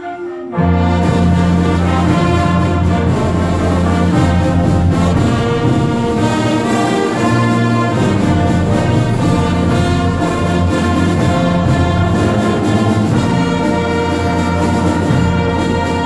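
Junior high school concert band of woodwinds, brass and percussion playing a Christmas arrangement. A softer passage gives way to the full band coming in loud about half a second in, with the brass prominent.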